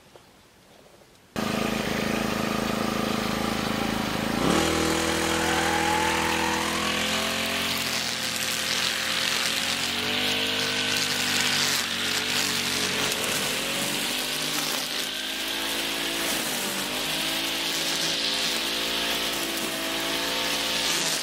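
Shoulder-slung brush cutter's small engine running at high speed as its nylon line head cuts grass, the pitch rising and dipping as the load changes. It starts abruptly about a second in, after near silence.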